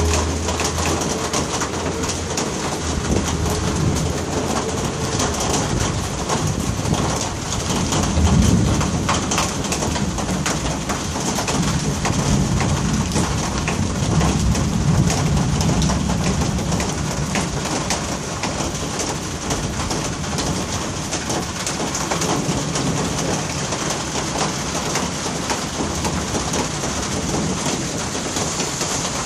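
Steady rain falling on a street, with low rolls of thunder: the loudest about eight seconds in, and a longer one from about twelve to sixteen seconds in.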